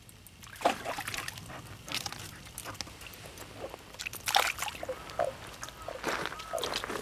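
Pond water sloshing and splashing in irregular bursts, about a dozen sharp splashes and trickles in a shallow pond where toads are gathered to breed.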